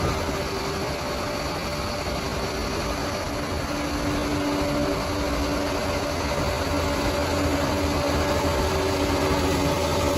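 Bulldozer diesel engine running steadily, with a constant engine hum and no sudden knocks or changes.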